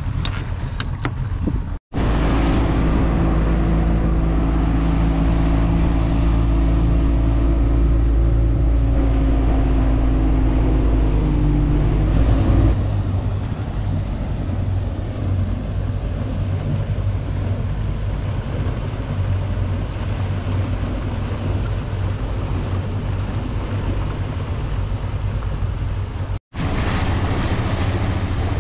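Fishing boat's engine running at a steady pitch, with wind on the microphone and water rushing past the hull. About twelve seconds in the steady engine note gives way to a noisier wind-and-water rush. The sound breaks off suddenly twice.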